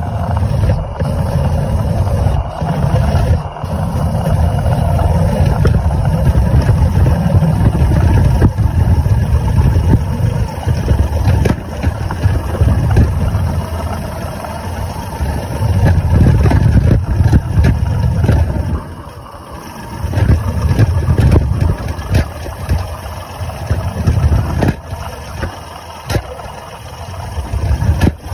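Maxitrak 3/4-inch-scale Sentinel DG6 live-steam wagon running along garden paving, heard from aboard: a loud, uneven low rumble from its engine and wheels with occasional sharp knocks. The rumble drops away briefly about two-thirds of the way through.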